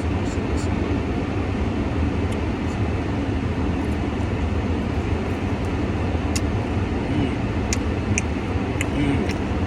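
Steady low rumble of a car running, heard from inside the cabin, with a few short sharp clicks and smacks from biting and chewing barbecue chicken wings in the second half.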